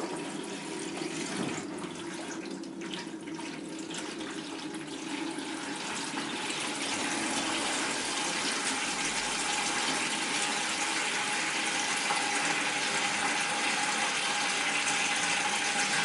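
Flush water draining out of a 1968 MGC's cooling system in a steady pour, a little louder from about six seconds in.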